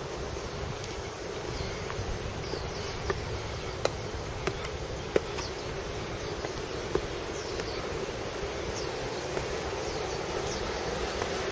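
Steady insect buzzing, with short high falling chirps recurring throughout and a few brief sharp clicks, the loudest about five seconds in.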